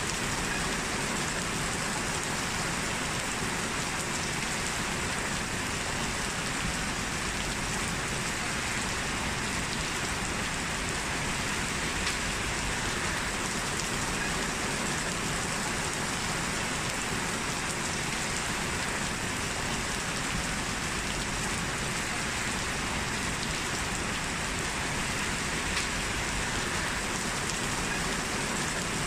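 Steady rain falling on a surface: an even, unbroken hiss of drops that holds at one level throughout.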